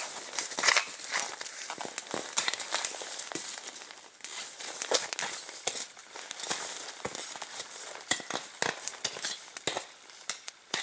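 Footsteps crunching and crackling in dry, deep-cold snow as a person climbs a wooded slope. They are loud at first and fade as the walker moves away uphill.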